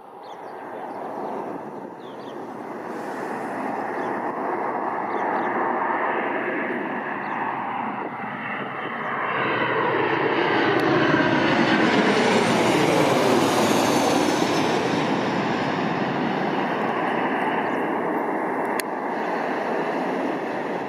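Boeing 737-900ER airliner on landing approach passing low overhead: the jet engines grow steadily louder to a peak about ten seconds in, with a falling, sweeping tone as it passes, then recede only slightly.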